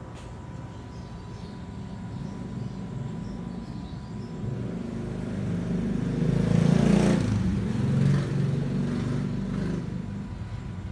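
A motor vehicle passing by: its engine and road noise swell over several seconds to a peak a little past the middle, then fade.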